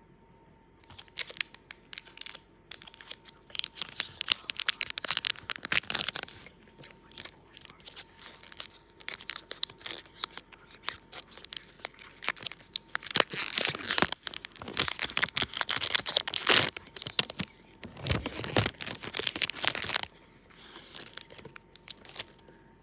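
A hockey card pack wrapper being torn open and crinkled: a long, dense run of crackling and tearing that stops suddenly about twenty seconds in.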